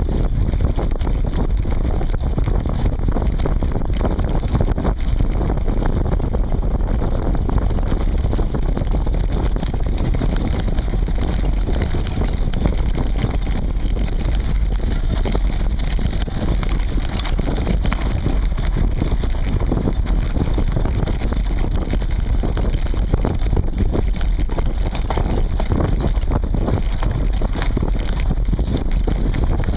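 A mountain bike rolling fast down a dirt woodland trail, heard through a seatpost-mounted camera: a constant rumble of wind buffeting and tyres on the ground, with many small knocks and rattles from the bike over the rough surface.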